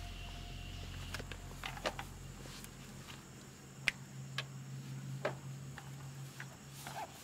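Scattered small clicks and light knocks of camping gear, a gas lantern and a round padded case, being handled on a wooden camp table, with the sharpest click about four seconds in. A faint steady low hum runs underneath.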